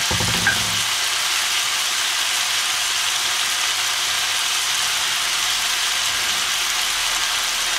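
Vegetables frying in oil in a nonstick wok pan, a steady sizzle, with a short low thud right at the start.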